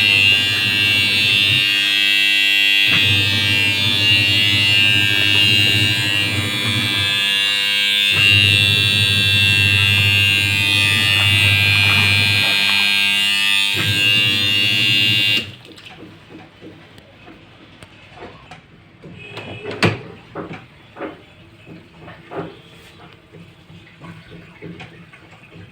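Washing machine running with a loud electric motor hum and buzz; the low hum breaks off and restarts three times. About fifteen seconds in the machine stops abruptly, leaving quieter scattered clicks and knocks.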